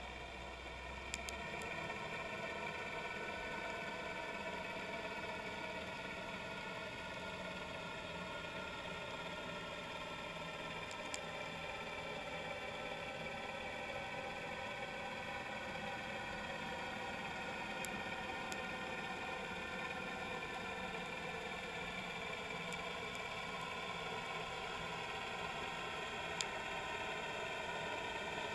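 Steady mechanical drone made of several tones that slowly drift in pitch, heard through an underwater camera, with a few faint sharp clicks.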